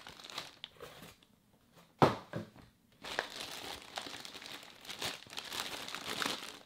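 Clear plastic parts bag crinkling as it is handled and its closure worked at, with one sharp knock about two seconds in and steadier crinkling from about three seconds on.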